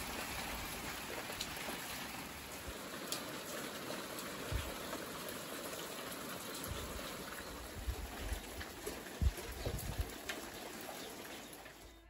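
Rain falling steadily, with scattered single drops ticking close by and a few low thuds.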